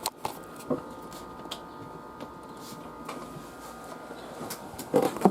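Steady background hiss with faint steady tones, a few faint clicks, and a brief louder sound near the end.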